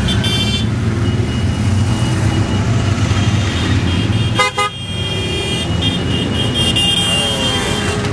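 Many motorcycles riding past in a slow column, their engines running together in a steady hum, with horns tooting near the start and again for a few seconds after the middle. A brief break in the sound about halfway through.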